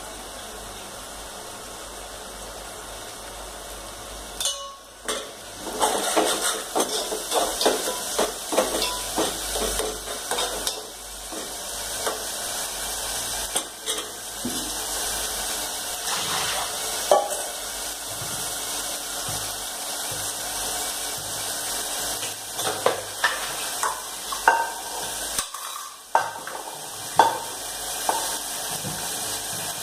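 Steel kitchen vessels and utensils clinking and clattering in irregular sharp knocks, starting about five seconds in, over a steady hiss.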